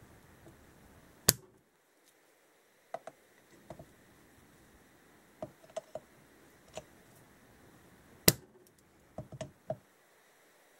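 Metal pliers clicking and tapping against the aluminium body of a Mikuni BS34 carburetor while gripping and working a cap loose. Two loud sharp clicks about seven seconds apart, with scattered lighter taps in between.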